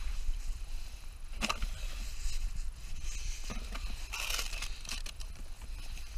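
Scattered rustling and crackling as litter and dry grass are handled by a gloved hand during litter picking, with a sharper crackle about a second and a half in and a denser rustle past the middle, over a steady low rumble.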